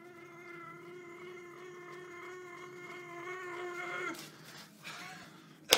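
A boy's long held yell on one steady note, growing louder and breaking off about four seconds in. A single sharp knock near the end.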